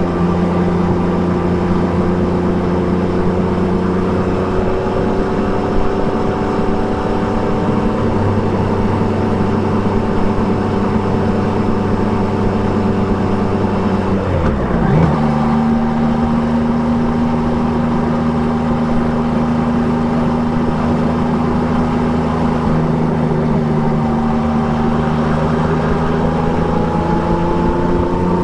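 Triumph Trident 660 inline three-cylinder motorcycle engine with an Akrapovic exhaust, running under steady throttle with its note slowly rising, broken by a quick gear change about halfway through, then climbing again near the end.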